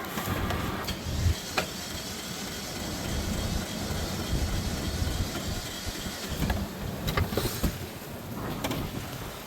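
Toyota engine running roughly and unevenly, its internals damaged by thousands of airsoft BBs fed into it, with a few sharp clicks about a second and a half in and again near the end.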